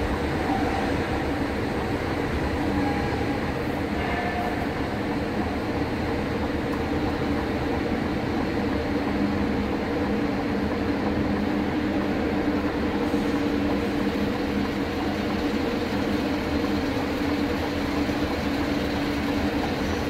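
Diesel truck engines running with a steady, unchanging drone and rumble inside a ferry's enclosed vehicle deck.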